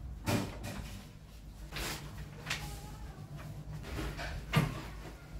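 Papers and household items being handled: rustling sheets and a few short knocks as things are picked up and set down, the loudest knock near the end.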